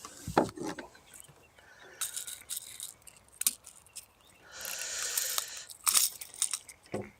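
Light metallic clicks and rattles of a jerkbait and its treble hooks being handled, with a brief hiss about four and a half seconds in.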